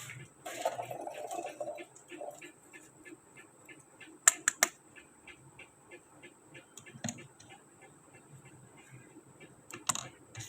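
Small plastic toy kitchen pieces being handled: light clicks and taps throughout, with a quick run of three sharp clicks about four seconds in and a brief rustle near the start. A faint steady high-pitched whine runs underneath.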